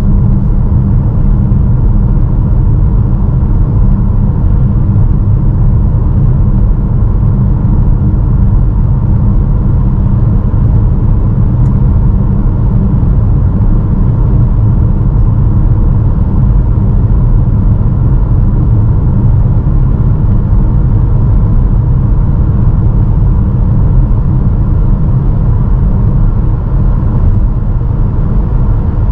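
Steady road and wind noise of a 2022 Honda HR-V e:HEV hybrid driving at speed on Goodyear UltraGrip Ice 2 winter tyres: a loud, even low rumble with tyre hiss and wind rush on top.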